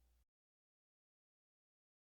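The faint end of background music cuts off about a quarter of a second in, followed by digital silence.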